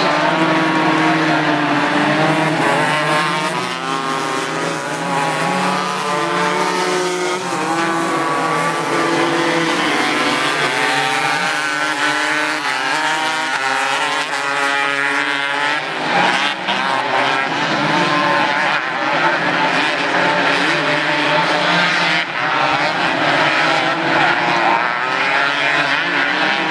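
A pack of 250 cc crosskarts racing, several small engines revving high at once, their pitch rising and falling as the karts accelerate, shift and brake around the track.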